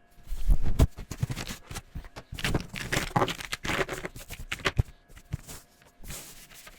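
Felt-tip pen scribbling on paper: quick, irregular back-and-forth strokes as an area is coloured in.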